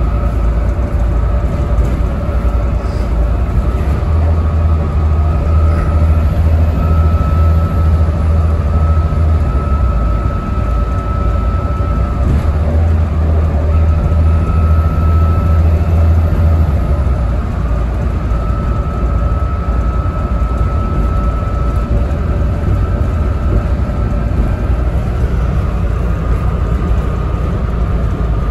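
Volvo B7TL double-decker bus's six-cylinder diesel engine running on the move, heard from inside the bus: a steady low drone that grows stronger twice, for several seconds each, as the bus pulls, with a thin whine above it.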